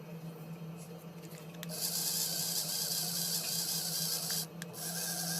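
Small DC motor of a homemade toy boat running with a steady hum. About two seconds in, a loud high hiss joins it, breaking off briefly near the end.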